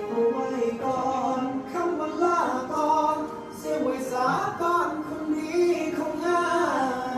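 Singing over a backing track, the voice bending and sliding between notes in Thai-style luk kor ornaments, with sweeping slides about two, four and six and a half seconds in.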